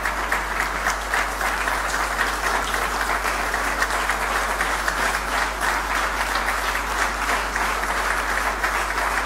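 Audience applauding: many hands clapping in a steady, sustained round of applause.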